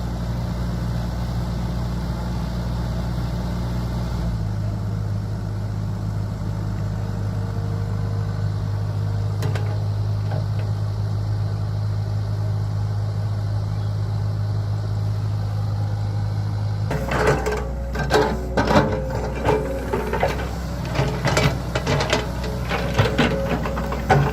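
Heavy diesel excavator engine running steadily, its note shifting about four seconds in. From about 17 seconds on, irregular metallic clanks and rattles sound over the engine.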